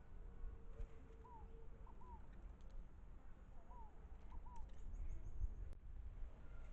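Faint bird calls: short downward-slurred notes, several in quick pairs, repeating every second or so, with a brief rapid run of high ticking notes about five seconds in.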